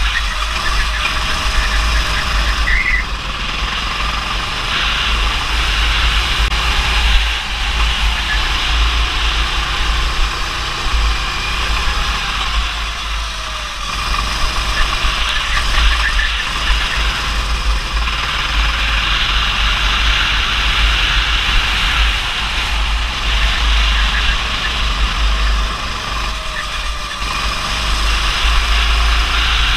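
Go-kart engine running at speed, its pitch rising and falling through the corners, under heavy wind rumble on an onboard camera's microphone.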